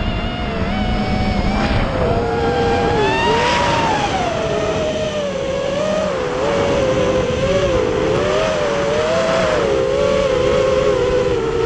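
FPV quadcopter's brushless motors whining, several close tones that rise and fall together with the throttle as it dives and pulls out, over a steady rush of wind and propeller noise.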